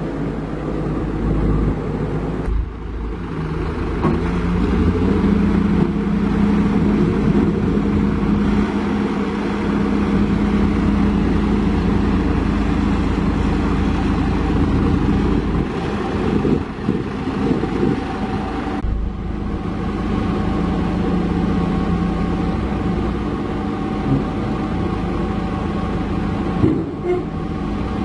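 Heavy diesel engine running steadily under load. Its pitch and level rise about four seconds in and ease back near the end of the first twenty seconds.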